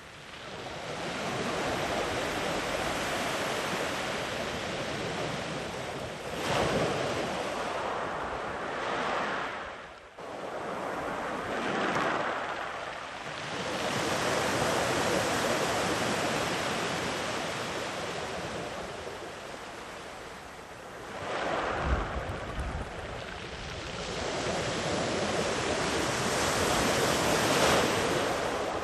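Sea waves rolling in and washing far up the beach, the surf swelling and falling back every few seconds. Wind buffets the microphone briefly a few times in the second half.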